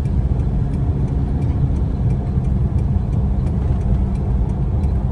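A motor vehicle running: a steady low engine and road rumble with no change in pitch.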